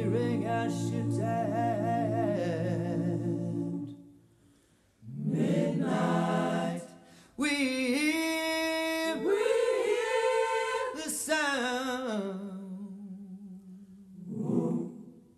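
Voices singing a cappella in slow phrases of long held, wavering notes. The singing breaks off about four seconds in, comes back a second later, and pauses briefly again near seven seconds.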